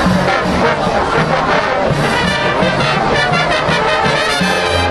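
High school marching band playing, brass section prominent with trombones and trumpets over a moving low bass line.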